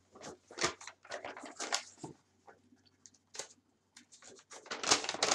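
Rustling of clothing and paper as a folded sheet is pulled out of a pocket and unfolded: scattered scrapes and crinkles, growing louder and busier near the end.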